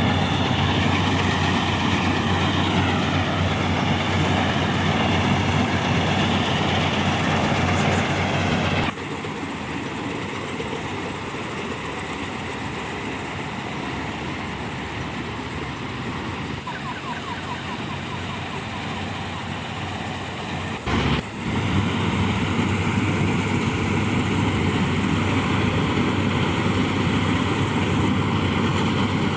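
Heavy farm machinery engines running steadily. The sound drops abruptly to a quieter level about nine seconds in and comes back louder after a brief break near twenty-one seconds.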